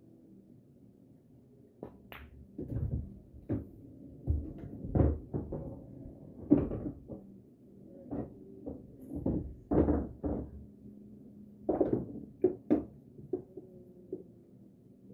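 Pool shot on a Valley bar table: the cue tip strikes the cue ball, balls click together and the 2 ball drops, followed by a string of irregular knocks and dull thuds over the next ten seconds or so.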